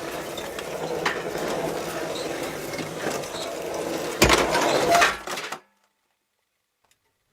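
A dense clatter of clinking, crockery-like knocks, with a louder crash about four seconds in; it then cuts off abruptly to dead silence.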